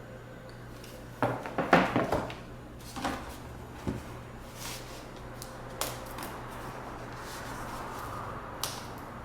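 Sharp clicks and knocks of objects being handled: a quick cluster about a second in, then single clicks every second or two, over a steady low hum.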